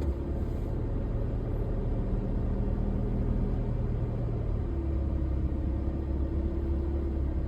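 Four-wheel-drive vehicle driving slowly over rough, muddy ground: a steady engine and tyre rumble, with a faint steady hum above it.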